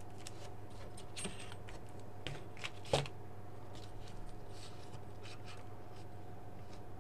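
Handling noises of a plastic gel filter sheet, light rustling and small clicks, with one sharper knock about three seconds in as a steel rule is laid down on it. A low steady hum runs underneath.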